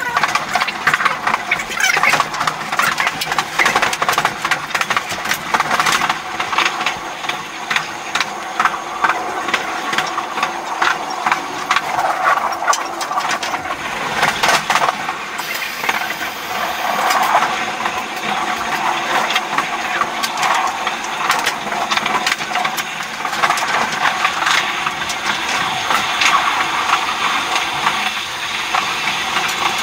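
Train ride sound sped up fourfold: a dense, high-pitched rattle with rapid, irregular clicks of wheels running over rail joints and switches.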